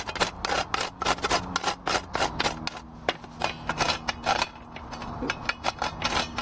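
Whole nutmeg being grated on a fine metal grater over a cooking pot: a quick run of short rasping strokes, several a second, with a brief pause a little past the middle.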